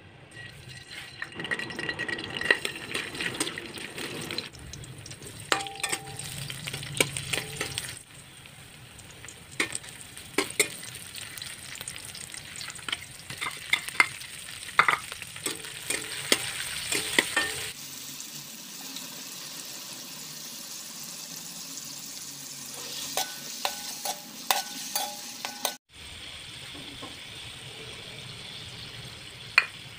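Oil and chopped garlic, onion and tomato sizzling in an aluminium wok, with frequent sharp clicks and scrapes of stirring against the pan. The sizzle changes character abruptly several times, dropping out briefly near the end.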